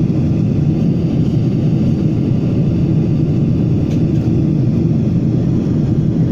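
Steady low rumble of a jet airliner's turbofan engines and rushing air, heard from inside the cabin at a window seat.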